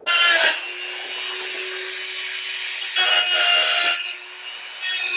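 Small corded power tool running at a steady pitch while it grinds a point onto the tip of a metal screw. The grinding grows louder for about a second, around three seconds in.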